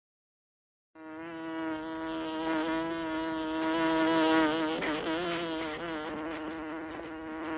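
A steady buzzing tone held at one pitch, starting suddenly about a second in after total silence.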